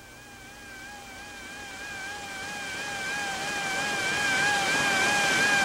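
A warbling electronic tone, wobbling about four times a second, over radio hiss that grows steadily louder.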